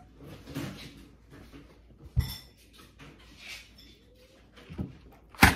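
Eating at a table: a metal fork knocking and clinking against a bowl of pasta, with a dull knock about two seconds in and a sharp clink near the end, between faint quiet stretches.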